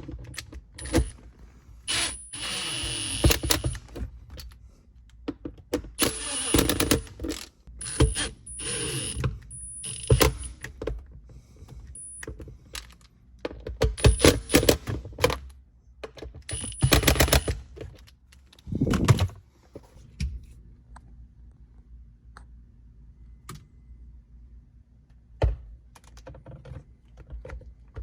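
Metal clanking and rattling from hand work on car exhaust parts: a run of irregular knocks, clicks and short scraping bursts, quieter in the last several seconds.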